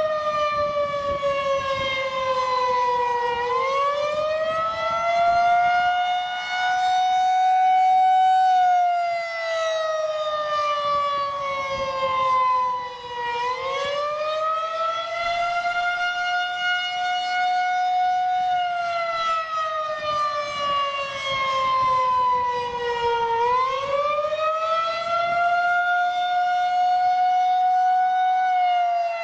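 Federal Signal 2001-130 rotating electromechanical outdoor warning siren sounding the Attack signal: a wavering wail that rises quickly, holds, then slowly falls in pitch, repeating about every ten seconds.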